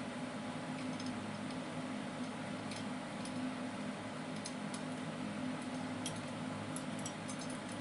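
Scattered light clicks and ticks from a ring-light stand's threaded fitting as a part is screwed onto its pole by hand, over a steady low hum.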